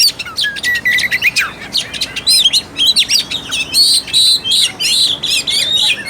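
Oriental magpie-robin (kacer) singing a fast, varied song of whistled notes and quick glides, turning to harsher repeated notes about two-thirds of the way through.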